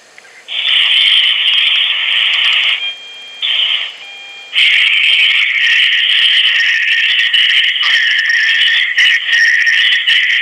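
Recording of a supposed Bigfoot grunt-growl call played over a phone's speaker, coming through poorly as a loud harsh hiss. It starts about half a second in and cuts out twice briefly in the first few seconds.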